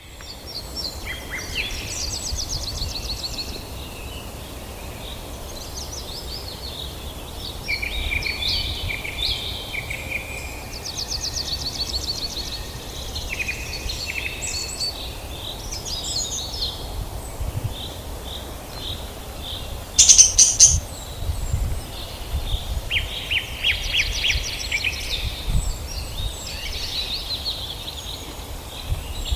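A group of budgerigars chattering and warbling continuously in quick chirps and buzzy trills, with one loud, harsh squawk about two-thirds of the way through, over a steady low rumble.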